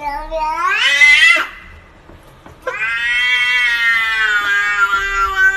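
Domestic cat yowling: a long drawn-out cry that rises in pitch and breaks off about one and a half seconds in, then after a short pause a second, longer yowl held steady and sinking slightly in pitch.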